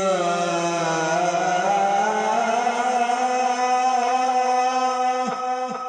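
A male Quran reciter holding one long melodic note in the ornamented mujawwad style. The pitch glides down at the start, holds steady, and wavers near the end.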